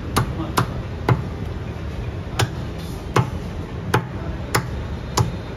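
A butcher's blade chopping chicken on a wooden log block: about eight sharp chops at uneven intervals, over a steady low background noise.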